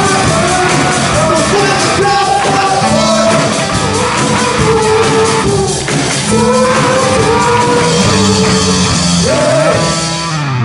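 Live rock band playing: electric guitar and drum kit under a male lead vocal singing and shouting long held notes, with the sung notes rising near the end.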